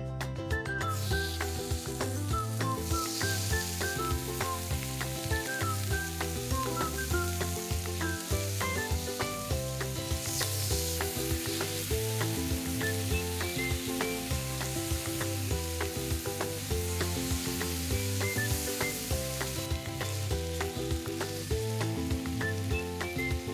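Sliced pork belly sizzling and spitting as it fries in a pan, with background music playing.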